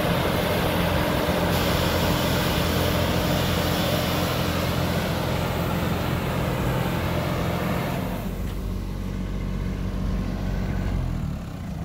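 Kubota Neostar B2441 compact tractor's three-cylinder diesel running steadily under load, driving an air-blast orchard sprayer whose fan blows a loud rush of air and spray mist. The rushing air thins out about eight seconds in, leaving mainly the engine's steady drone.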